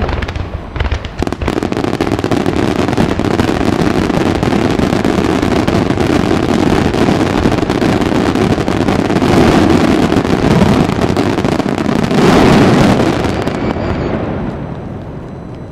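Grand-finale fireworks barrage: shell bursts and crackle so dense they merge into a continuous rumble, loudest about twelve seconds in, then dying away near the end.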